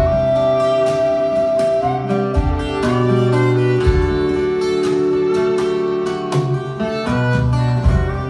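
Scottish folk band playing an instrumental tune live, with fiddle and acoustic guitar. Long held melody notes sit over a steady low note, and low thuds mark the beat every second or two.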